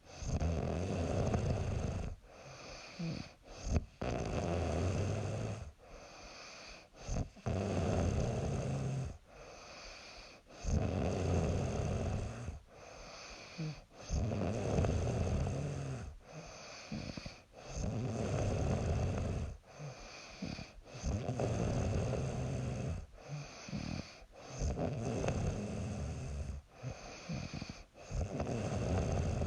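A young woman snoring in her sleep: a snore about every three seconds, each lasting one and a half to two seconds, with quieter breathing between.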